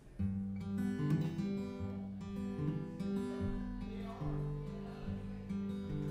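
Solo acoustic guitar playing a blues song's introduction, with plucked notes over a steady, repeating bass line, starting a moment after a short pause.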